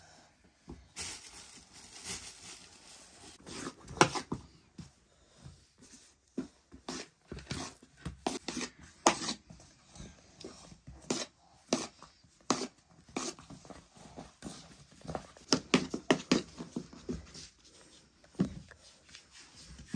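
Hands working soft bread dough on a metal tray: irregular short slaps and pats as the dough is torn into portions and shaped.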